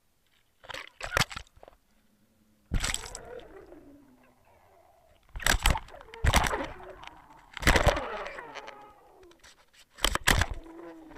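A carp feeding at a pop-up hookbait, heard underwater: several loud knocks, clicks and sucking sounds as its mouth works the bait and bumps the rig. Some of the knocks trail off in a short falling tone.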